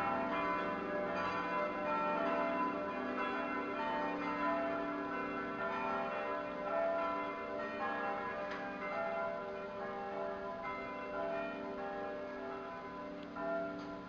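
Church bells ringing in a belfry, struck again and again so that their tones overlap in a continuous peal.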